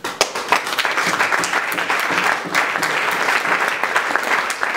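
Audience applauding: dense, even clapping from many hands that breaks out suddenly and carries on.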